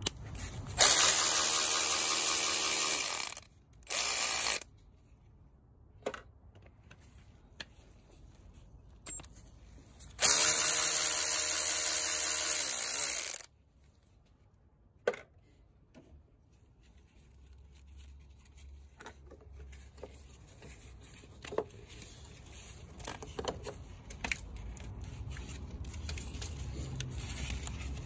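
Cordless electric ratchet motor running on a bolt on top of the engine, in two runs of about three seconds each (about a second in and about ten seconds in), with a short half-second run between; scattered light clicks and tool handling fill the gaps.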